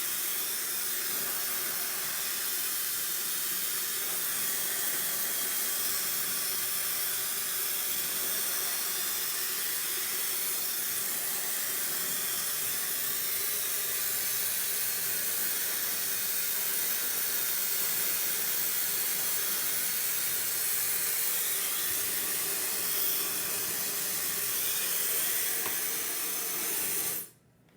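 Handheld hair dryer running with a steady rushing hiss of air, cutting off suddenly near the end.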